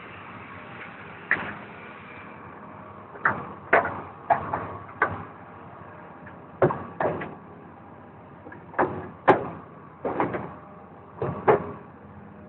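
About a dozen irregular knocks and bangs, some in quick pairs, over the steady hum of a running engine.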